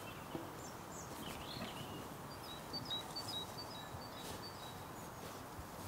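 Woodland ambience: a steady faint background hiss with small birds chirping, including a quick run of short high repeated notes in the middle. There are also a few faint knocks.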